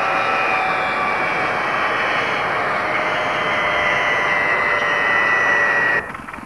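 Mi-8MTV-1 helicopter's twin turboshaft engines running, a loud whine of several tones that slowly fall in pitch. It cuts off suddenly about six seconds in.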